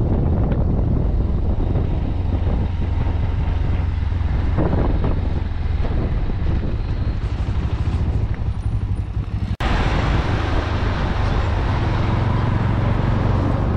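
Motorcycle engine running at road speed with wind rushing over the helmet microphone, as a steady low hum under a noisy rush. It cuts out for an instant about two-thirds of the way through and carries straight on.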